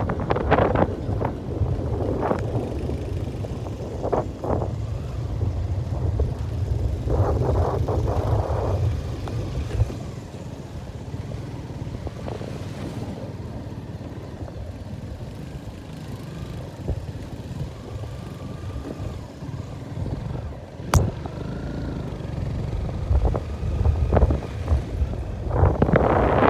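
Wind buffeting the microphone of a motorcycle-mounted camera on the move, over a low rumble. The rumble and gusts ease after about ten seconds and swell again near the end, with a single sharp click about twenty seconds in.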